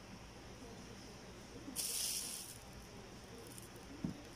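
Takeaway food packaging rustling as it is handled, one short burst lasting under a second about two seconds in, with a soft knock near the end.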